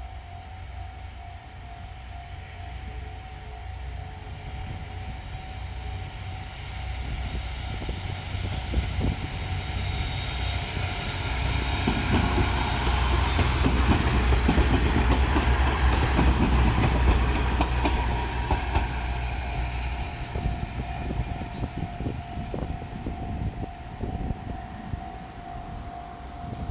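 Japanese level-crossing warning bell ringing steadily as a diesel railcar train passes over the crossing. The train's engine rumble and wheel clicks swell to their loudest about halfway through, then fade. The bell stops right at the end.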